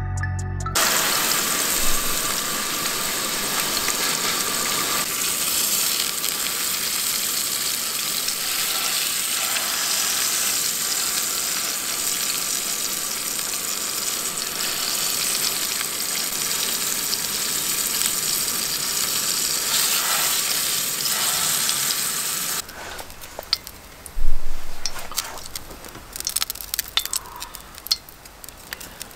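Albacore tuna loin searing in oil in a stainless steel frying pan on a gas camp stove: a steady, loud sizzle that cuts off suddenly after about 22 seconds. A loud thump follows, then light knife knocks on a cutting board as the seared loin is sliced.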